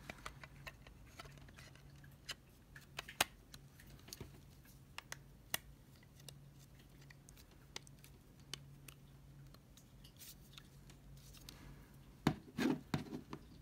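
Scattered small clicks and scratches of an iPod's metal back case being pressed and worked onto its front housing by hand, with a few louder clicks near the end. A faint steady low hum runs underneath.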